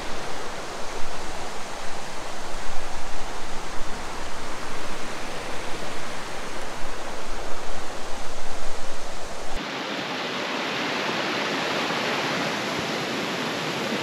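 Mountain river rushing loudly: a dense, steady roar of fast water, with an uneven low rumble in the first two-thirds. About ten seconds in it switches abruptly to a steadier, brighter rush.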